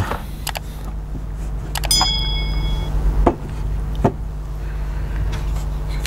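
A few short clicks and knocks of objects being handled and set down on a wooden table, with a brief ringing clink about two seconds in, over a steady low hum.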